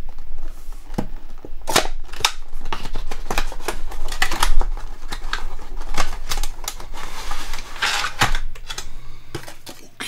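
Cardboard box and packaging being opened and handled by hand: a run of sharp clicks, taps and rustles, with a longer scraping rustle about eight seconds in.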